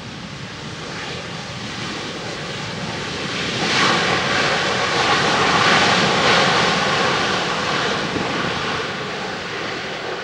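Engines of a twin-engine Boeing wide-body jet airliner passing close by. The noise swells to its loudest about four to seven seconds in, then begins to fade.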